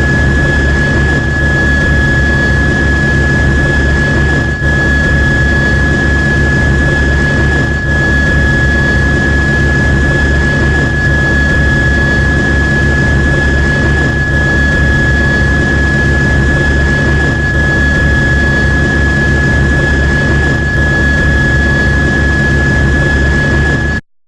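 News helicopter running steadily, a high turbine whine over a fast low pulsing from the rotor. It cuts off abruptly near the end.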